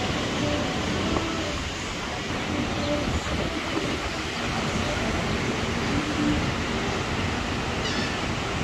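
Steady rushing noise of wind and surf, with a brief high gull call about eight seconds in.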